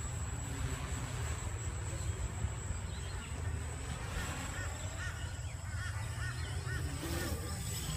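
A bird calling in a quick run of about seven short, arched notes partway through, over a steady low rumble.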